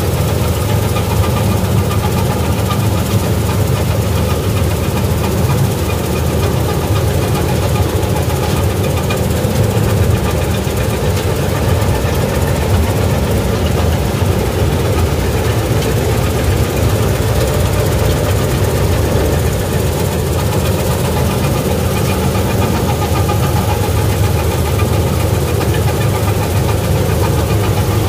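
Gill 961 combine harvester running steadily while cutting wheat, heard from the operator's seat: a loud, even engine drone together with the running header and threshing machinery.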